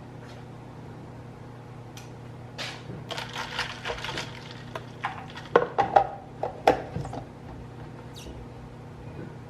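A run of sharp clinks and knocks, some with a short ring, as hard kitchen items are handled, over a steady low hum. The loudest knocks come a little past halfway through.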